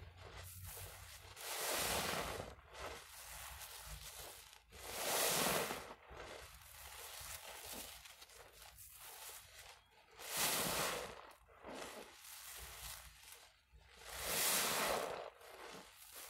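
Soap-foamed wet sponges squeezed by hand: four louder squelching swells of foam and water, each about a second long, with quieter crackling of bubbles between.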